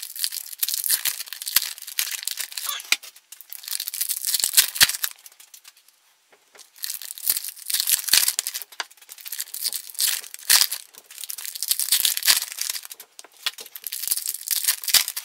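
Wrapper of a baseball card pack being torn open and crinkled by hand, in repeated crinkly bursts with a short pause about halfway through.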